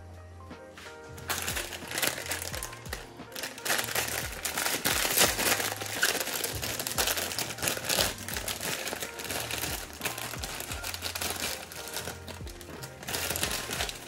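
Background music with a stepping bass line, and loud crinkling and crackling over it that starts about a second in.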